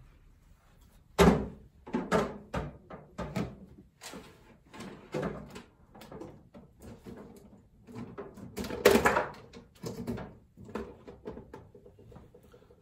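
Irregular knocking and clattering of hard objects being handled and set down, with the loudest knocks about a second in and about nine seconds in.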